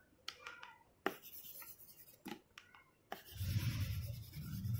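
A few light clicks, then a plastic stylus scratching and rubbing across the pressure-sensitive screen of an LCD writing tablet from about three seconds in.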